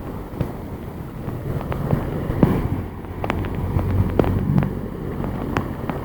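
A vehicle's engine running low as it moves through flood water, with a steady wash of water and rain. Many sharp taps sound close by, about one every half second.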